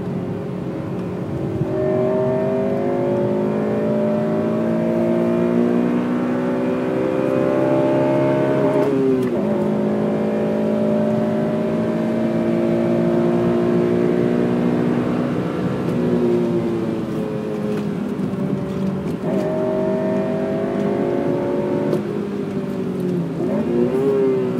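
Honda Civic Type R FN2's 2.0-litre four-cylinder VTEC engine pulling hard through the gears, its pitch climbing steadily, dropping sharply at an upshift about nine seconds in, then climbing again. Past the middle it falls away as the driver lifts off, picks up again briefly, and dips and rises once more near the end.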